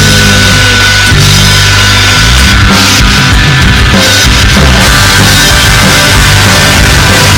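Loud rock music: a band playing with drums and heavy guitar, with held bass notes that change every second or so and no singing.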